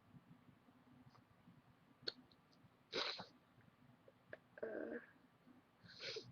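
A woman's short, sharp sniffs and breaths through the nose, the loudest about three seconds in and another just before six, with a small click about two seconds in. She is suffering from a runny, sneezy nose, which she puts down to allergies.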